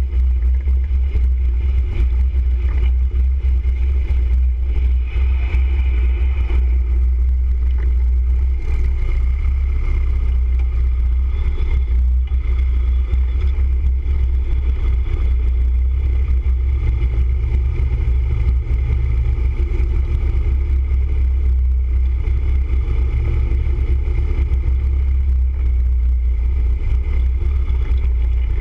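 Motorcycle riding at street speed, heard from a camera mounted on the bike itself: a steady, loud low rumble of engine and wind with no breaks.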